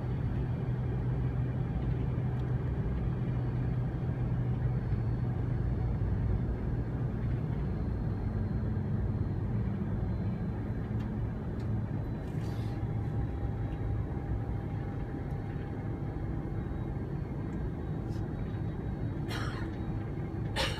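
Steady low rumble of a Boeing 747-400's engines and airframe heard inside the passenger cabin as the airliner taxis at low thrust, with a couple of brief rustles near the end.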